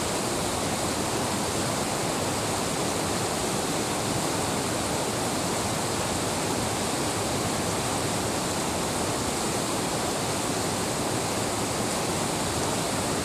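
Open river water rushing steadily past ice edges, an even unbroken noise.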